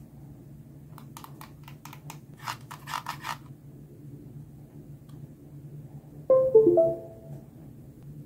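A quick run of about ten light, sharp clicks, then a few seconds later a short electronic chime of several notes, mostly stepping downward and ending on one held higher note. The chime is the loudest sound.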